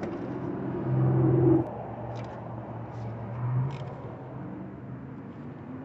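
A low steady mechanical hum, like a running engine, that swells for about half a second around a second in. Over it come a few light metallic clicks as a hand ratchet snugs the new spark plugs.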